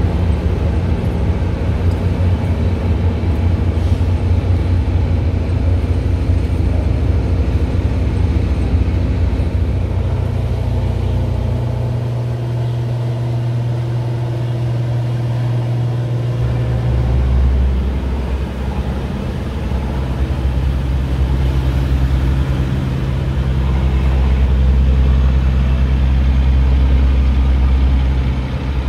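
A heavy engine running with a deep, steady hum, its pitch shifting twice as the revs change.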